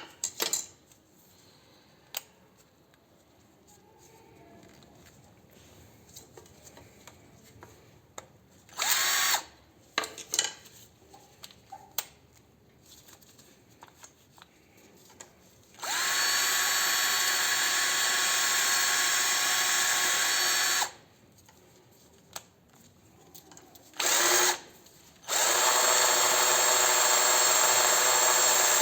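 Makita 12V cordless drill driver's motor running unloaded in several short trigger bursts, then in two longer steady runs with a high whine. The second run, starting about 25 s in, is louder and lower in pitch.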